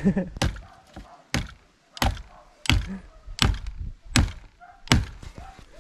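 A steady run of heavy thunking blows, about eight of them, spaced roughly two-thirds of a second apart.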